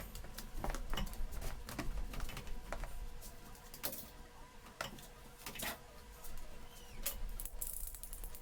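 Irregular light clicks and taps of small hard parts being handled, a few each second, over a faint low hum.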